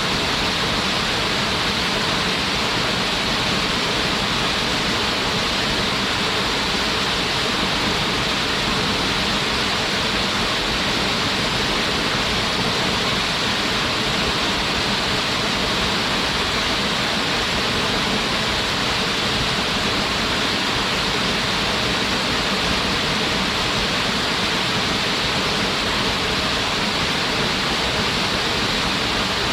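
Waterfall pouring steadily: an even, unbroken rush of falling water, with no change.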